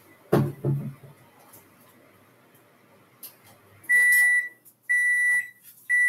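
Microwave oven's end-of-cycle signal: three high single-pitched beeps, each about half a second long and a second apart, starting about four seconds in, which mark the end of the one-minute cook on high power. A single sharp knock comes just before, near the start.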